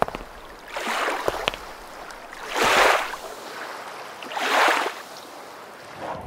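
Water splashing in three short swells, each about half a second long and roughly a second and a half apart, over a low background hiss with a few light ticks.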